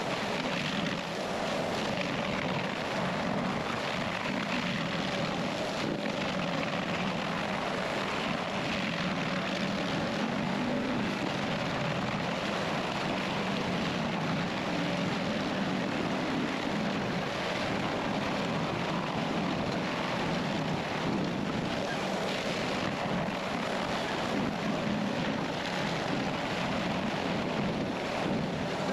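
Stump-removal machine's engine running steadily under load, a continuous even drone with a grinding hiss over it that neither rises nor falls.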